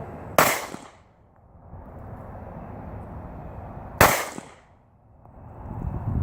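Two pistol shots about three and a half seconds apart, each a sharp crack with a short echo trailing off.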